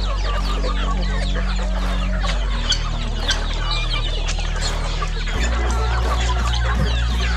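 A flock of chickens feeding: many overlapping clucks and high peeps from chicks, with low held background music notes underneath that change every few seconds.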